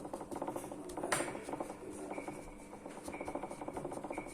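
Kitchen knife cutting through a black radish: a dense run of small crisp crunches, with one sharp click about a second in.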